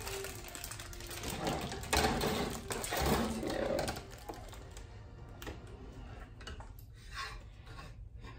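Plastic zip ties and metal wire wreath forms being handled on a table: quick runs of clicking and rattling, busiest and loudest in the first half, then fewer, separate clicks.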